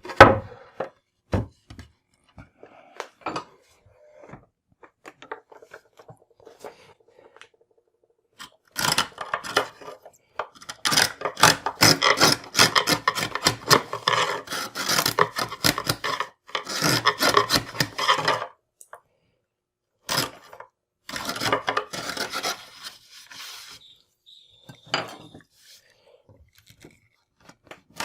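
A hand tool scraping and rubbing on wood in runs of rapid strokes, the longest and loudest lasting several seconds in the middle, with scattered taps and knocks between the runs.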